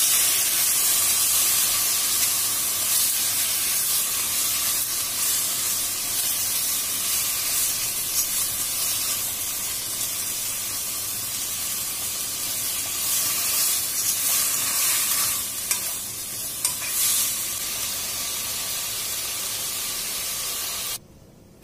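Sliced beef frying in a hot nonstick pan, a steady sizzle, with a utensil stirring and scraping the meat around the pan. The sizzle cuts off suddenly near the end.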